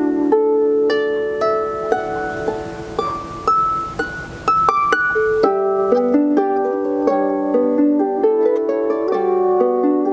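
Celtic harp playing plucked notes and chords, with a rising run of single notes in the middle, under a soft hiss.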